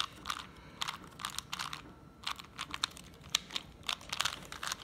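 A new magnetic 2x2 speed cube being turned quickly by hand: a fast, irregular run of plastic clicks as its layers turn and snap into place.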